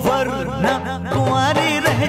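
Hindi film song music: a melody of quick sliding turns over a steady drum beat.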